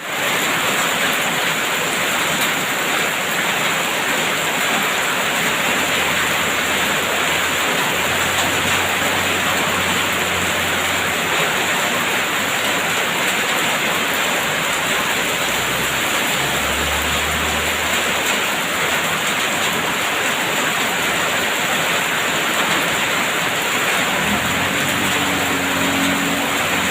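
Steady, heavy rain falling without a break. A low hum rises out of it a few times, around eight seconds in, around sixteen seconds in and near the end; the last one carries several higher, layered tones.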